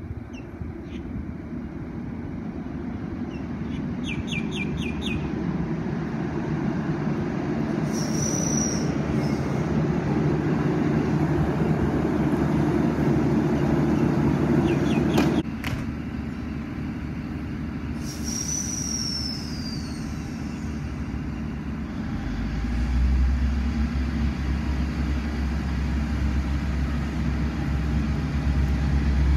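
An Endeavour-class diesel railcar set pulls into the platform, its engine and wheel noise growing steadily louder as it rolls in. The brakes squeal briefly twice, the second a falling squeal. After it stops, a low steady engine hum sets in as it idles at the platform.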